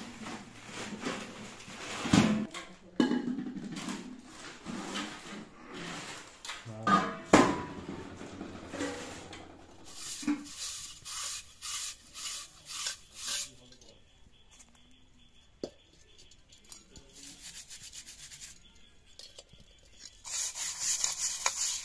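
Metal cooking pots and plates knocking and clattering as they are handled, with a few sharp knocks in the first half. Near the end, a terracotta clay lid is scrubbed with a wad of straw in quick rubbing strokes.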